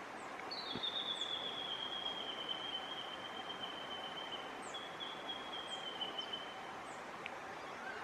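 Bush ambience with a thin, high, steady whistle held for about four seconds and then for about two more, slightly falling in pitch. Faint, short, very high chirps from small birds come now and then.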